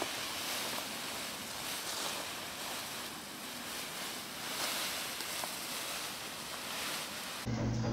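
Steady rushing noise, even and without a clear pitch. Near the end it cuts off abruptly and music with a strong bass begins.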